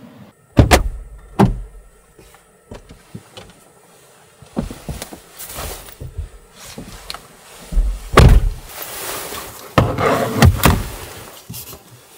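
Two heavy clunks of the Land Rover Defender's door being shut near the start, then rustling of a puffer jacket and bedding with several loud bumps as someone moves about inside the vehicle.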